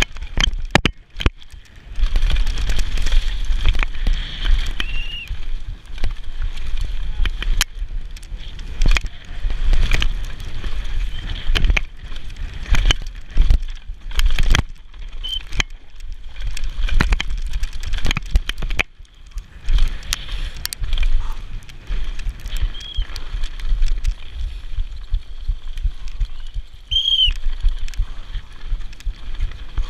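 Specialized Demo downhill mountain bike descending a rocky dirt trail at speed: tyres and suspension clattering and knocking over rocks, with wind rumbling on the camera microphone. A few brief high squeals cut through, the loudest near the end.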